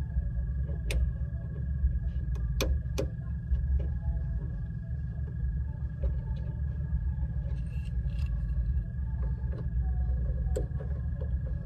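Suzuki Samurai driving off-road: a steady low engine and drivetrain rumble, with sharp knocks and rattles from the body as it goes over rough ground, three in the first few seconds and one more near the end.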